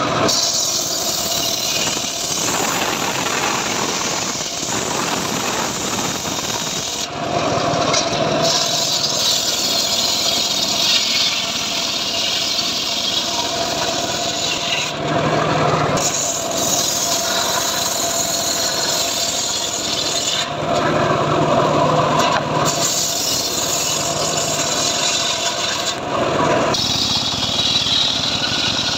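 Homemade table circular saw ripping rain-tree (trembesi) timber, the blade cutting lengthwise through the wood in a steady rasping run. The sound changes abruptly several times as different pieces are fed through.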